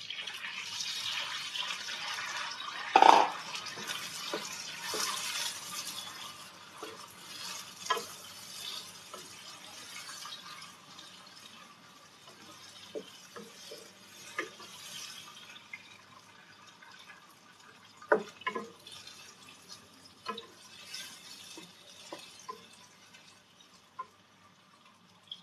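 Water running from a kitchen tap into a sink while dishes are washed, with a loud clank about three seconds in and scattered knocks and clinks of dishes after. The running water is loudest for the first few seconds, then quieter.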